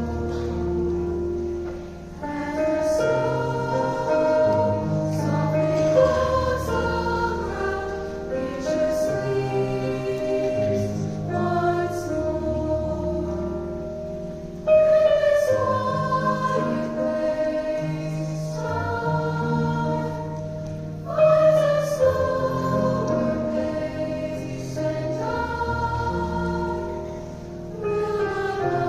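Choir singing in several parts with held notes over a low bass line, growing suddenly louder twice partway through.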